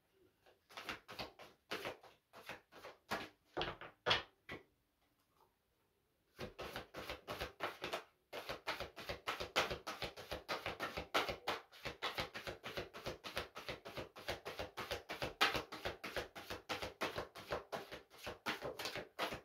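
A deck of large oracle cards being shuffled overhand by hand: quick papery slaps and flicks as packets of cards drop onto the deck. The slaps come in scattered bursts at first, stop for about two seconds, then pick up again several a second and keep going steadily.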